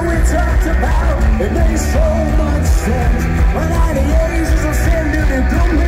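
Live rock band of electric guitars, bass and drums playing loud in an arena, heard from among the crowd. This is the song's instrumental outro, just after the last sung line.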